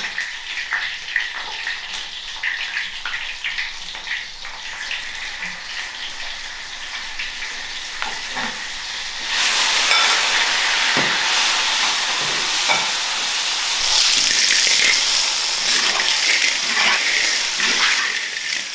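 Stir-frying in a large iron wok over a wood fire: hot oil sizzling, with the clicks and scrapes of a metal spatula. About nine seconds in, sliced sausage is scraped in from a plate and the sizzle jumps to a much louder hiss as clams and sausage fry.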